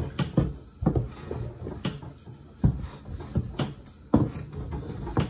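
Wooden rolling pin knocking and rolling over dough on a plastic cutting board: a run of irregular dull knocks, roughly two a second.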